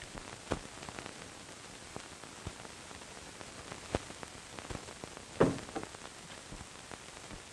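Steady hiss of a 1940 film's old soundtrack, with a few faint knocks and one short, louder sound about five and a half seconds in.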